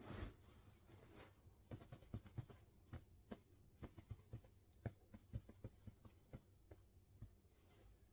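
Faint, irregular scratchy taps, about two or three a second, against near-silent room tone.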